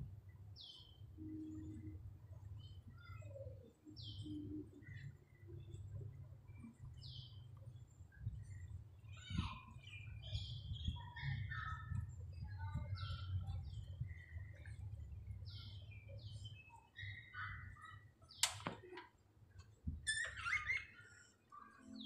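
Budgerigars chirping softly: short high falling chirps every second or two, mixed with quieter warbling chatter, over a low background rumble. A single sharp click near the end.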